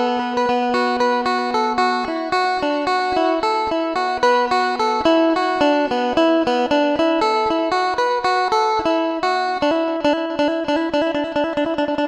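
Instrumental background music: a plucked-string melody of quick, evenly paced notes over a held low note.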